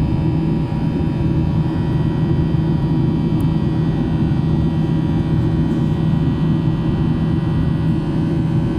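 Jet airliner engine noise during takeoff: a steady rumble with many faint steady whining tones above it.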